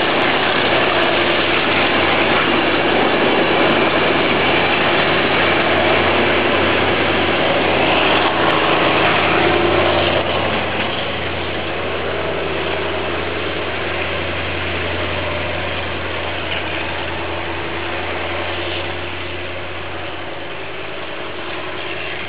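Diesel-hauled passenger train running steadily, a mix of engine and wheel noise. It drops in level about ten seconds in and then slowly fades as it moves away.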